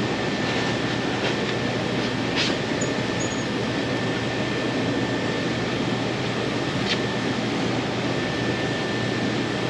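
Steady fan-like rushing noise with a faint high whine running through it, and two faint clicks, one about two and a half seconds in and one about seven seconds in.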